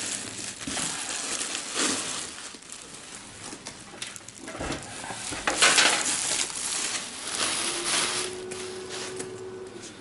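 Plastic wrapping on a computer case crinkling and rustling in irregular bursts as the case is handled.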